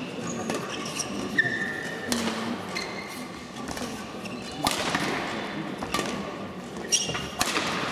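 Badminton rally: rackets strike the shuttlecock with several sharp cracks a second or more apart, while players' shoes squeak briefly on the court floor.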